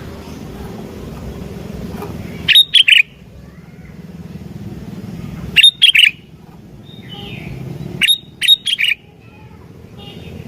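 Sooty-headed bulbul (kutilang) calling: three loud bursts of quick chirping notes about three seconds apart, over a low steady background rumble.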